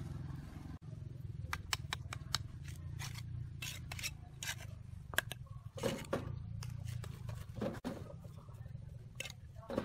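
Clay bricks being handled and set in place on a column base: a run of sharp clicks and clacks of brick on brick and on the trowel, with a few heavier knocks near the middle and end, over a steady low hum.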